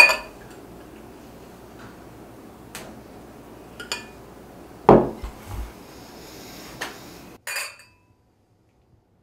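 Wine glasses handled on a wooden table: a few sharp clinks and knocks, a heavier thump about five seconds in, and near the end a clink of glasses touching in a toast, with a short ring.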